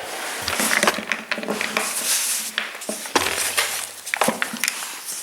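Clicks, knocks and scraping of a chainsaw's plastic and metal parts being handled and worked apart during disassembly, in a quick irregular clatter.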